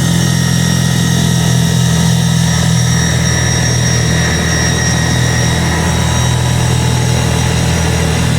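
ATV engine running steadily at an even pitch, with no marked revving.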